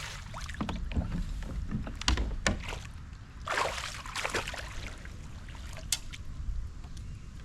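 Sounds from a small boat on the water: scattered knocks and a water swish over a steady low rumble.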